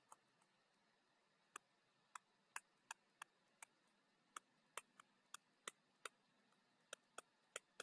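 Stylus tapping and clicking on a tablet screen while handwriting, about fifteen short, faint, irregular clicks.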